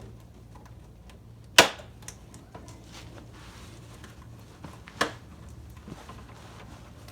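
Two sharp clacks about three and a half seconds apart, the first much louder, with faint handling clicks between them, over a low steady hum.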